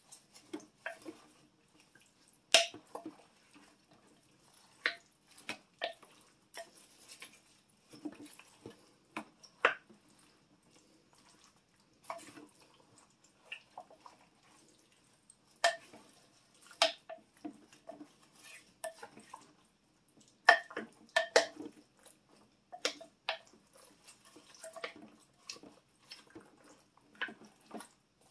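Wooden spoon stirring a thick mix of kielbasa, vegetables and cream soup in a Crock-Pot slow cooker's crock, with irregular knocks and clacks of the spoon against the crock, the loudest about two and a half seconds in and around twenty seconds in.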